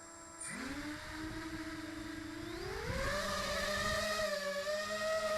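Emax 250 racing quadcopter's MT2204-2300KV brushless motors and 5050 two-blade props whining as they spin up: the pitch sweeps sharply up about half a second in, holds, then climbs to about double around three seconds in as throttle is added, wavering slightly.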